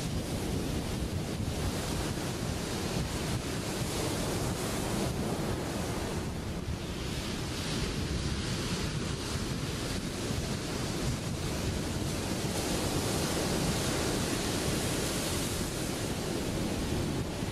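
Ocean surf: a steady rush of breaking waves and whitewater, the hiss swelling around the middle and again near the end.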